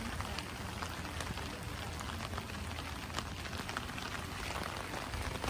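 Steady rain falling, an even hiss scattered with many small, sharp drop hits.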